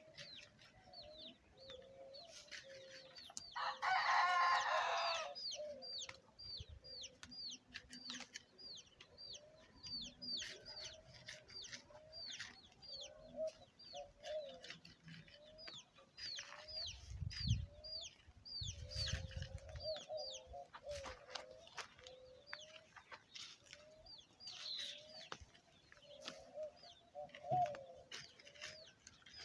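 Chickens clucking, with a steady run of short, high, falling chirps or peeps. A rooster crows once, loudly, about four seconds in.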